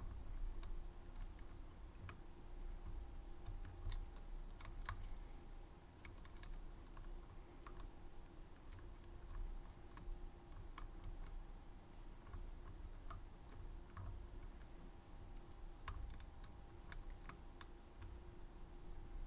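Irregular small clicks and taps of lock-picking tools working the pins of a Medeco M3 high-security lock, a few clicks a second at uneven spacing, over a faint steady hum.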